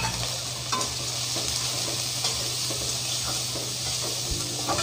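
Turkey berries, diced potato and soya chunks sizzling in hot oil in a steel kadai while a metal spatula stirs them, with a few sharp clinks and scrapes of the spatula against the pan.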